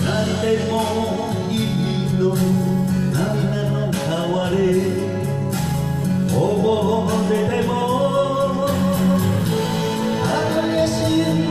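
A man singing a Japanese enka ballad into a karaoke microphone, his amplified voice over the karaoke backing track.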